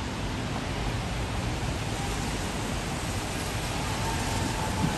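Steady, even rush of outdoor noise, with a faint thump near the end.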